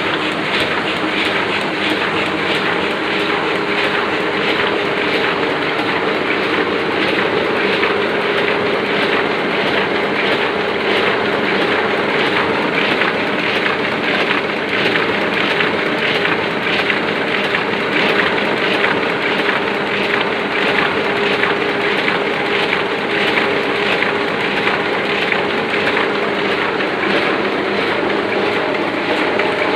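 Oliver printing press running steadily at its normal working speed: a continuous fast mechanical clatter over a steady hum.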